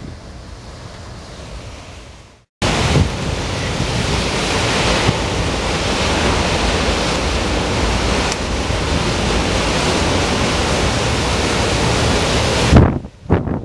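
Rough sea in a storm surge, heavy surf breaking and churning, mixed with wind buffeting the microphone. The sound cuts out briefly about two and a half seconds in, then comes back loud and steady, and drops away near the end.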